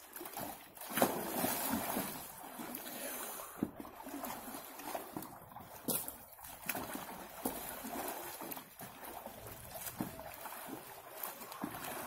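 Water sloshing and splashing in an above-ground frame pool as a man wades and pushes the water back and forth to whip up waves, with a louder splash about a second in.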